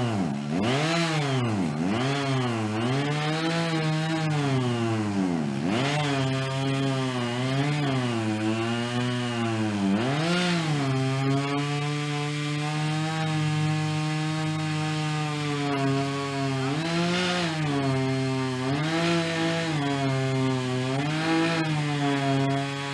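Chainsaw running and cutting wood. For the first ten seconds or so its pitch swings up and down repeatedly, then it holds steadier under load, with brief rises in pitch near the end.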